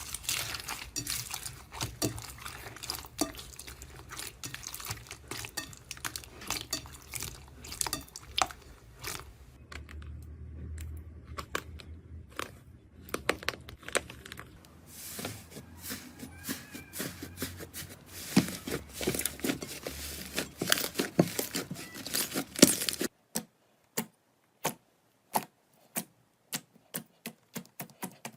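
Slime being squeezed, stretched and pressed by hand, with dense wet, sticky clicks and pops. About 23 seconds in it cuts to a quiet background with separate sharp clicks, about two a second.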